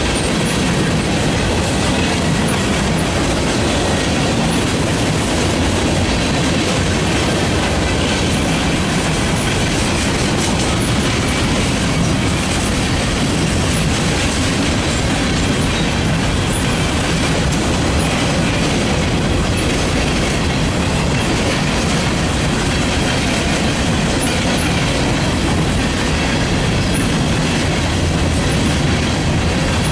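Freight cars of a long mixed freight train rolling past close by: a steady rumble and clatter of steel wheels on the rails.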